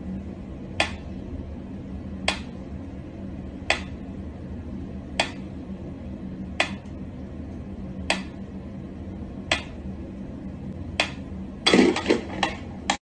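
Mechanical pyramid metronome ticking slowly, one sharp tick about every second and a half, over a steady low hum. Near the end comes a quick burst of louder knocks and clatter as a cat paws at the metronome.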